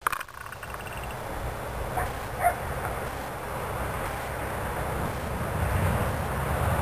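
A dog gives two short barks about two seconds in, the second louder, over a steady outdoor background hiss and rumble.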